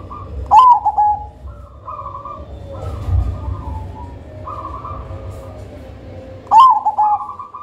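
Zebra dove (perkutut) singing: two loud song phrases, about half a second in and again near the end, each a quick rising note followed by a rapid string of short coos. Fainter cooing phrases come in between.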